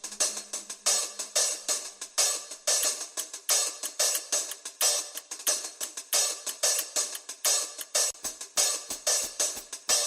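Background music: a drum-led beat with busy hi-hats and cymbals, a low kick drum coming in near the end.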